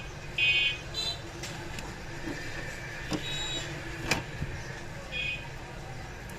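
Steady street traffic rumble with two short, high horn toots, one about half a second in and one about five seconds in, and two sharp clicks around three and four seconds in.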